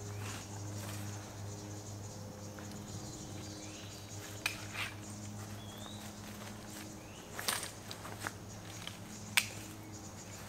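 A folding camp chair being opened out and set up: scattered clicks, knocks and rustles, the sharpest about nine seconds in, over a steady low hum.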